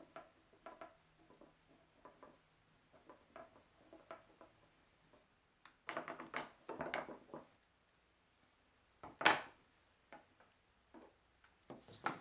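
A wire lampshade frame and its fabric cover being handled on a wooden table: scattered light clicks, taps and rustles, a longer stretch of rubbing about six seconds in, and one short, sharp scrape about nine seconds in.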